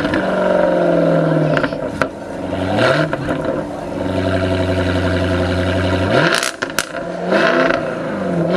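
Jaguar F-Type engine and exhaust being revved: the revs climb, hold high for a couple of seconds, then drop away with a string of sharp pops and crackles from the exhaust on the overrun, followed by one more short rev near the end.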